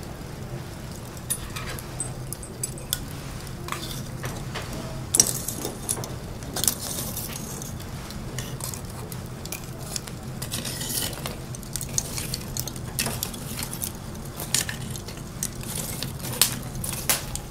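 Lit charcoal fire crackling and hissing in short spells, with scattered sharp clicks and clinks of the coals being shifted with long fire chopsticks, over a steady low hum.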